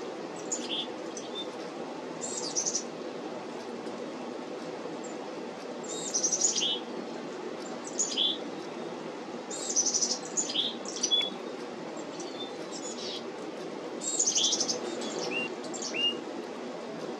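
Black-capped chickadees calling in short series spaced a few seconds apart: high thin notes followed by buzzy 'dee' notes, with a few short high whistled notes near the end, over a steady low background hum.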